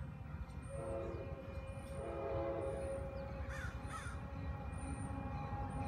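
Distant train horn sounding two blasts of about a second each as a train approaches, over a low rumble. A crow caws twice near the middle.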